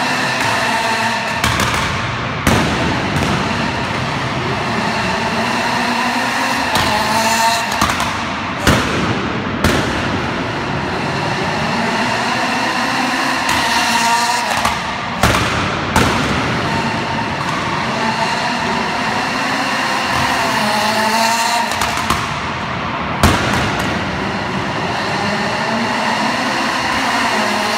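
Citroën Saxo rallycross car's engine revving up and down several times, with loud gunshot-like exhaust bangs going off about eight times between the revs.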